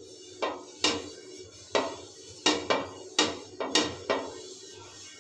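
Flat metal tawa on a gas stove giving irregular sharp metallic knocks, about two a second, as oil is rubbed over it with a cloth pad and the pan shifts on the burner.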